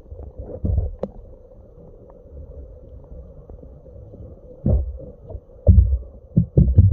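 Muffled underwater sound from a smartphone microphone submerged in a water barrel: a low rumble of moving water with dull thuds, one about a second in and several close together in the last two seconds.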